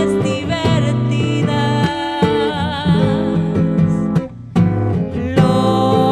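Live folk song with acoustic guitar strumming and a woman singing with vibrato; the music breaks off briefly about four seconds in, then comes back in.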